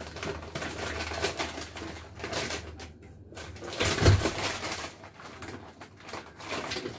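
Crunching and chewing of Leibniz biscuits close to the microphone, in irregular crackly bursts, with a low thump about four seconds in.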